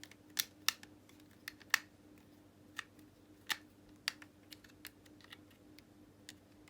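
Light, irregular clicks and taps of a small screwdriver working out the screws of an Xbox One controller's plastic housing.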